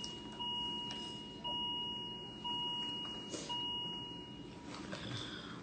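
Hospital bedside equipment alarm beeping: a steady electronic tone repeating about once a second, each beep fading until the next, stopping about four and a half seconds in.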